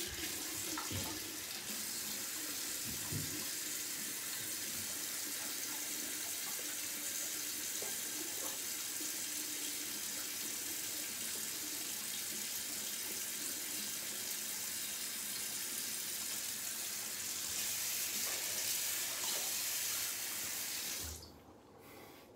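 Bathroom sink tap running in a steady stream. The flow sounds louder for a few seconds near the end, then the tap is turned off about a second before the end.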